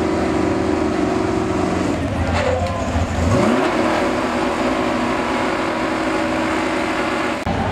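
Truck engine running steadily, then rising in pitch as it revs about three and a half seconds in.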